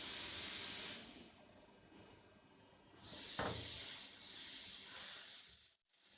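Hissing spray at a CNC lathe, coming in two spells: about a second at the start, then two to three seconds from about three seconds in. There is a short knock about three and a half seconds in.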